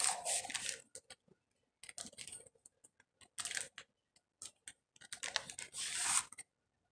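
A cardboard cornstarch box being handled: several bursts of crinkling and clicking, the longest near the end.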